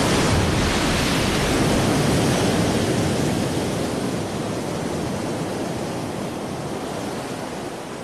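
Ocean surf breaking over coastal rocks: a steady rushing wash of foaming seawater that slowly fades.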